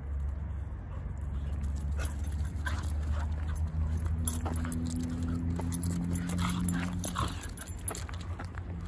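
Two dogs play-fighting at close quarters, making short, sharp noises in quick succession from about two seconds in. A steady low hum runs through the middle of it.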